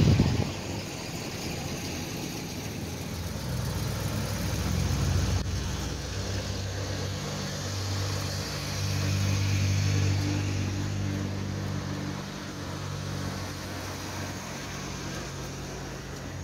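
Classic cars driving slowly past one after another, each engine giving a steady low note that rises and fades as it goes by; the loudest passes about five and ten seconds in.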